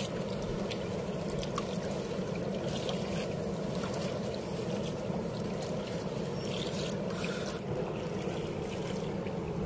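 Steady rush and slap of choppy river water against a small wooden boat, with wind.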